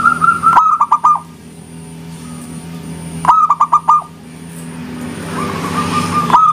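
Zebra dove (perkutut) cooing its song in about three phrases. Each phrase is a run of soft, quick coos ending in about four louder, clipped notes that dip in pitch, over a steady low hum.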